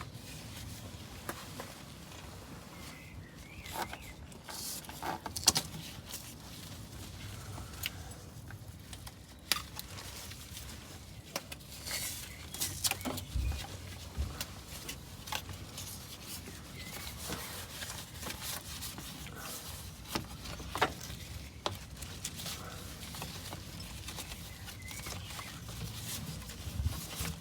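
Irregular metallic clicks and knocks of a hand tool on the auxiliary belt tensioner of a Renault Master 2.2/2.5 diesel engine as the tension is released and the belt is worked off.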